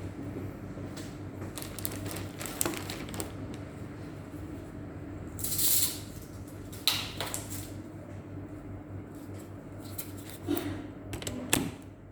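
Scattered small clicks and taps of hands handling a laptop's case and parts, with a short scrape about halfway through, over a steady low hum.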